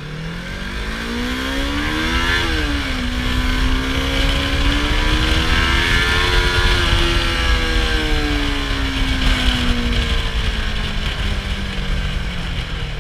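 Yamaha YZF-R25's parallel-twin engine through its stock exhaust, accelerating with a rising note, upshifting about two seconds in, then pulling again before the note eases down as the sound grows louder and then fades.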